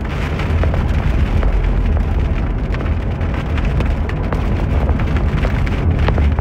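Heavy rain pelting the car's roof and windscreen in countless sharp taps, over the low rumble of the car driving on the wet road.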